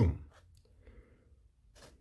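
A man's voice finishing a word, then near silence with a couple of faint clicks.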